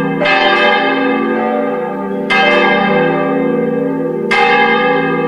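Church bells ringing, with three strikes about two seconds apart, each ringing on and fading over a steady lower hum.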